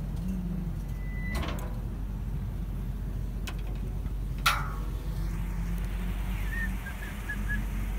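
2000 Isuzu NPR dump truck running with a steady low hum. There is a light knock about a second and a half in and a sharp metallic clunk about four and a half seconds in.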